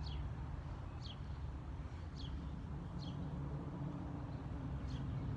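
A bird calling outdoors: short, high, downward-sliding chirps, about one a second, over a steady low rumble.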